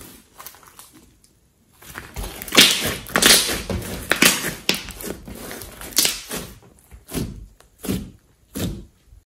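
Hands squeezing, folding and stretching a large lump of slime, giving irregular wet squelches and pops. There is a short pause about a second in, and the last few squelches come separately about a second apart near the end.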